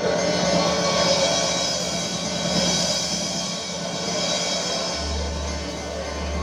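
Music with drums playing; a deep bass comes in about five seconds in.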